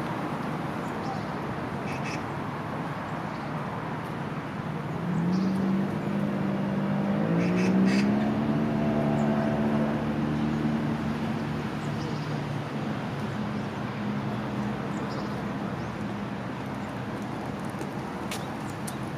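Outdoor city park ambience: a steady background hum. About five seconds in, a low droning tone comes in; it steps up in pitch after a couple of seconds and fades out after about twelve seconds. A few faint short chirps sound over it.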